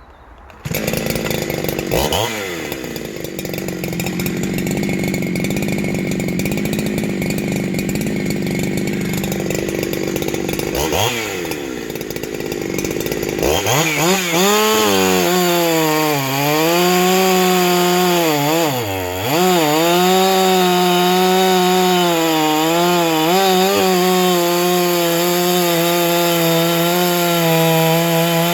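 Ported Husqvarna 372XP-clone two-stroke chainsaw starting up and running at high revs, with two brief pitch blips. From about halfway the engine note wavers and dips repeatedly while the saw keeps running loud.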